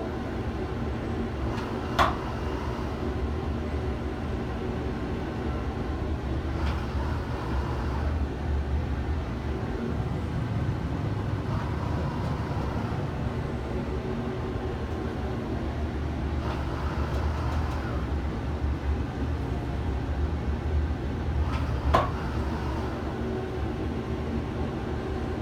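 Steady low rumble inside a moving Ferris wheel gondola, with two sharp clicks, one about two seconds in and one near the end.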